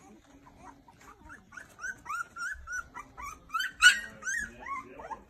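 Young puppies squeaking and whimpering: many short, high rising and falling cries that grow busier about a second and a half in, the loudest one just before four seconds.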